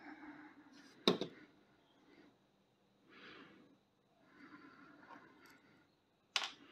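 Small metal carburetor parts clicking in the hands as gaskets and a diaphragm are fitted to a chainsaw carburetor: one sharp click about a second in and a louder one near the end. Soft breaths in between.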